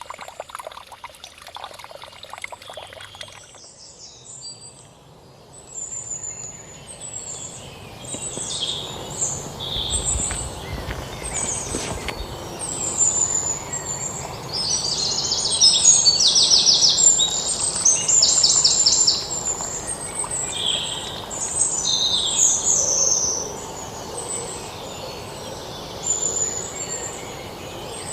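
Several birds chirping and calling over a steady outdoor background, with fast trills loudest in the middle. In the first few seconds a dense trickling or crackling sound runs under them.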